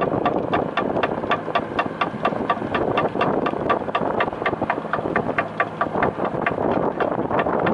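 Fishing boat's diesel engine running under way, with a steady exhaust knock about five times a second over the rush of the bow wave.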